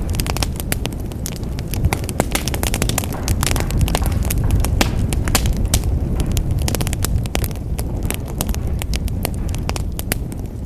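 Wood fire burning in a fireplace, crackling and popping with many irregular sharp snaps over a steady low rumble of the flames.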